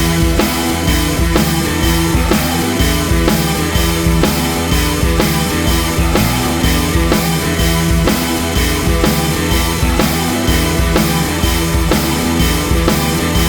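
Music with a steady drum beat, in a rock style.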